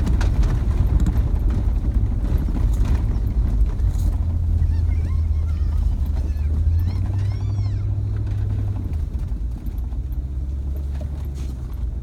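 Engine and tyre noise of an off-road vehicle heard inside its cabin, crawling along a rough gravel track: a steady low drone with rattling road noise, the engine note rising twice and dropping back about nine seconds in.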